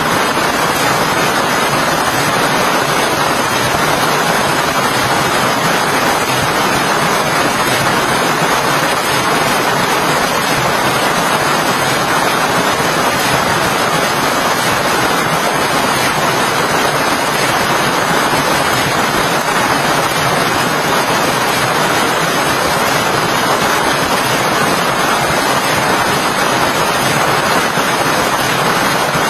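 Steady rain falling, an even, unbroken rush of water noise.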